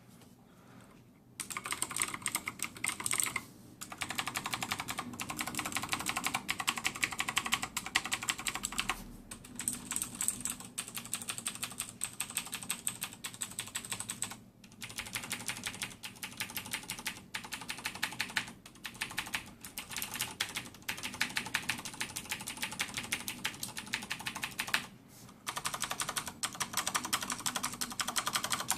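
Fast typing on a mechanical keyboard with clicky blue switches: dense runs of sharp key clicks in bursts, broken by several short pauses.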